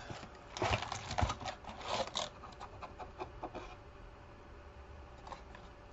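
Cardboard box of trading card packs being handled and opened, giving a run of rustles and light taps over the first few seconds that then fade to faint handling noise.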